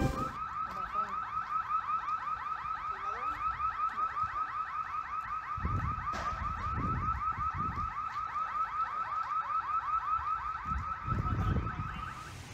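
Car alarm going off: a fast, evenly repeating electronic chirp that runs steadily and stops near the end, with a few low rumbles underneath.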